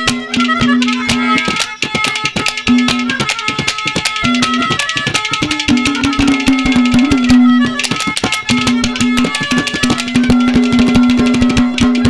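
Instrumental interlude of Haryanvi ragni folk music: a fast hand-drum beat under a held melody line that breaks off and resumes several times.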